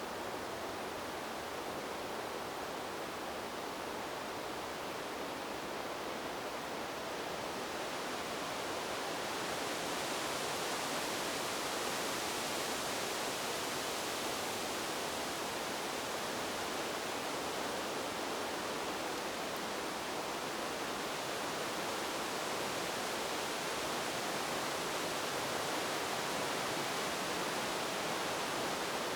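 Wind blowing through forest trees: a steady rush of noise that grows stronger about ten seconds in and stays up.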